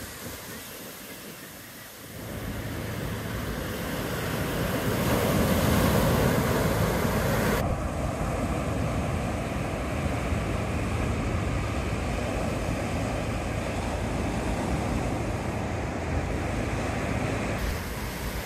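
Ocean surf breaking and washing in, a steady rushing that dips low for the first two seconds, then swells to a peak about five seconds in before settling.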